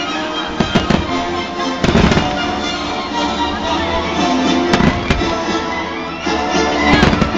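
Fireworks going off over continuous music, with sharp bangs a little under a second in, a cluster about two seconds in, another near five seconds and one near the end.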